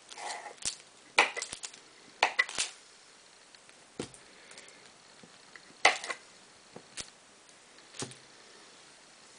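Kitchen knife chopping and trimming hard, brittle salt-soap bars: sharp, irregular knocks and clicks. They come in quick clusters in the first few seconds, then singly about a second apart.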